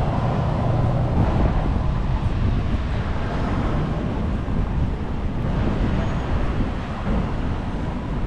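Steady low rumble of wind on the microphone mixed with street traffic noise while riding.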